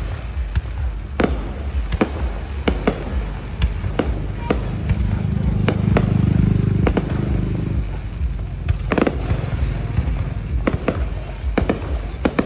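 Fireworks display: shells bursting in a rapid, irregular string of sharp bangs, with a louder low rumbling swell about five to seven seconds in.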